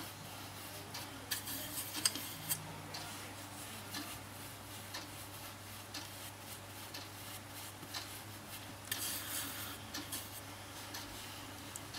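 Faint rubbing of fingertips on skin while makeup is dabbed and blended on the face, with a few small handling clicks, heaviest about a second in and again near the end. A steady low hum lies underneath.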